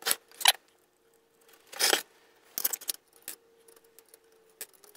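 Metal clinks and clicks from an induction motor's end bell and through-bolts being handled and fitted back on. There are a few sharp clicks, with one longer scrape about two seconds in.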